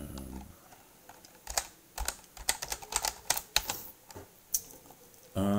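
Typing on a computer keyboard: a run of quick, uneven key clicks. A brief hum of a man's voice comes near the end.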